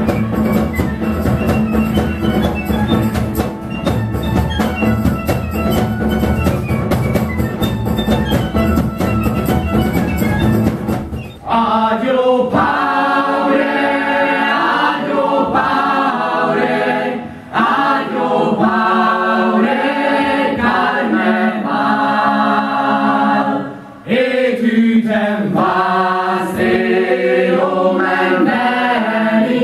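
Folk-style ensemble music with percussion and a steady low drone, which cuts off suddenly about eleven seconds in. Then the cast sings in chorus, several voices in harmony, the phrases broken by two brief pauses.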